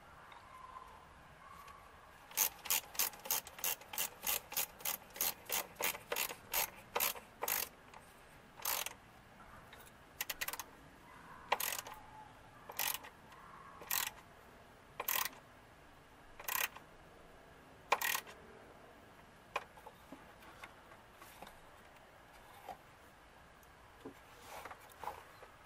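Hand socket ratchet clicking as it turns the hose-clamp screw on the intake's rubber coupler at the throttle body. It starts with a quick run of strokes, about three a second, then slows to one stroke about every second and a half, with a few fainter strokes near the end.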